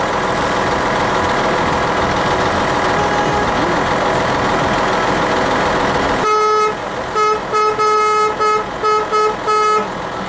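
Steady noise of a stopped vehicle with its engine running. About six seconds in, a vehicle horn honks in a quick, uneven series of short blasts lasting about four seconds.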